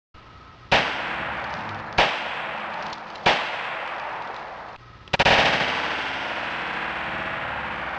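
.40 S&W pistol (Taurus PT-100) firing: three single shots about a second and a quarter apart, then a quick pair of shots about five seconds in. Each shot leaves a long echoing tail.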